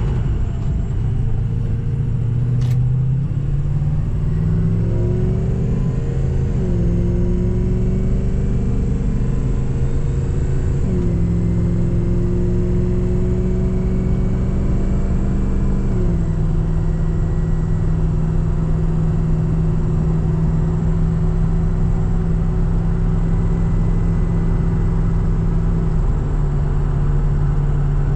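Ford 6.0 PowerStroke V8 turbodiesel in a 2003 F350 running while the truck is driven. The engine note climbs in steps over the first several seconds, as with gear shifts, then holds steady and drops to a lower note about sixteen seconds in.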